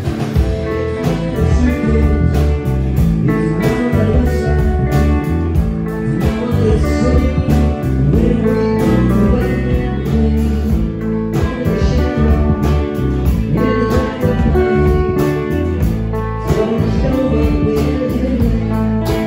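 Live rock band playing: electric guitars over a drum kit, with a male voice singing.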